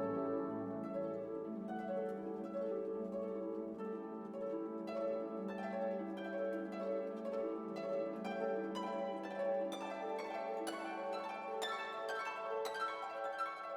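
Background music: plucked harp-like notes over sustained string tones, with quick plucked notes growing busier toward the end.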